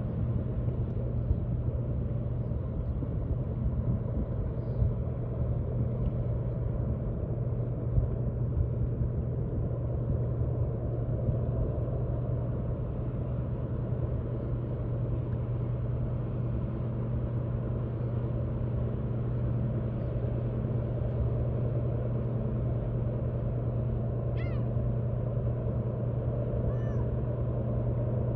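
Steady low drone of a Great Lakes freighter's engines, a constant hum over a rumble, with no change in pitch or loudness.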